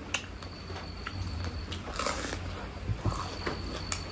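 Close-miked eating sounds of someone chewing big pieces of mutton curry: scattered wet smacks and sharp mouth clicks, a few each second, over a faint steady hum.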